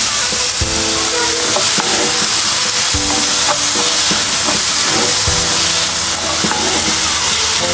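Food sizzling steadily in a hot pan, with background music of held notes and a low beat every two to three seconds.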